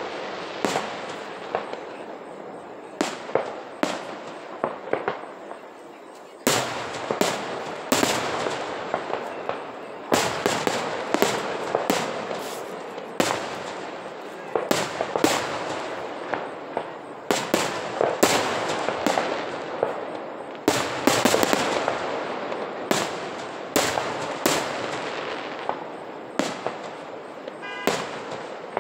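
Aerial firework shells bursting one after another, a sharp bang every second or so, sometimes several close together, each trailing off in a long rolling echo.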